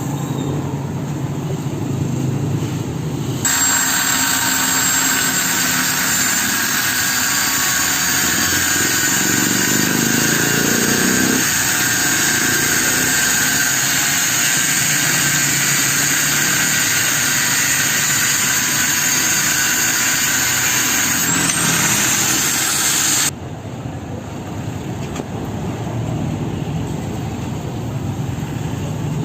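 Angle grinder with a cut-off disc cutting steel. It starts about three and a half seconds in, runs steadily with a high whine, and stops abruptly about twenty-three seconds in.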